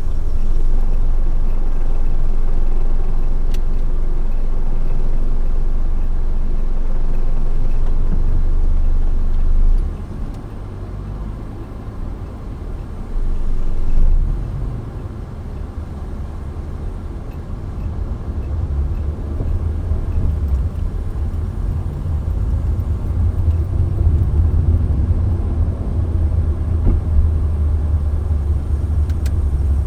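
Low, steady road and engine rumble of a moving car, heard from inside the car. It drops about ten seconds in, swells briefly, then builds again toward the end.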